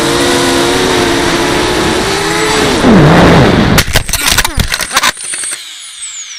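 Quadcopter motors and propellers whining in flight, heard through the onboard Mobius camera's microphone. About three seconds in the pitch drops, and a run of sharp knocks follows as the drone crashes and tumbles. Near the end a thin whine falls away.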